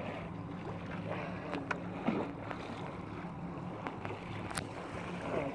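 Small waves lapping against a rocky lakeshore, with a few light splashes and a low steady hum underneath.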